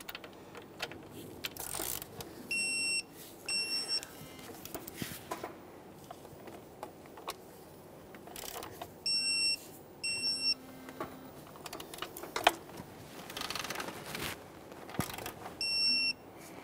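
Digital torque wrench beeping in pairs of short high beeps, three times, each time a manifold bolt is brought to its set value of 89 inch-pounds plus 45 degrees. Light clicks of the ratchet and socket come between the beeps.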